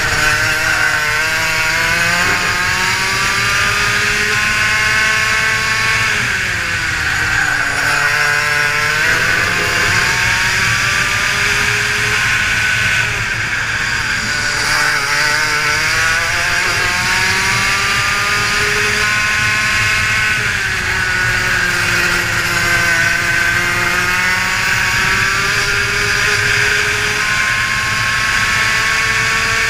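125cc two-stroke racing kart engine at full throttle, heard from on board: the revs climb steadily along each straight and fall away sharply when the driver lifts for the corners, several times over.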